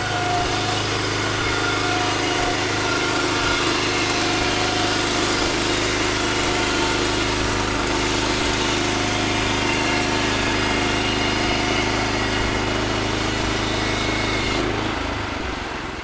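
The petrol engine of a Woodland Mills HM126 portable bandsaw mill running steadily while the band blade saws a board off a cedar cant. It drops away near the end.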